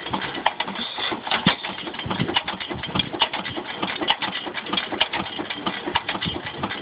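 8 hp Waterloo Boy single-cylinder hit-and-miss stationary engine running unloaded, a quick, uneven run of sharp knocks and pops.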